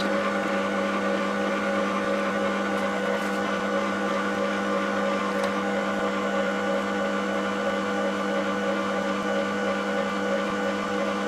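Bosch MUM stand mixer running steadily at a low kneading speed, its motor giving a steady, even hum as the dough hook works wet pizza dough.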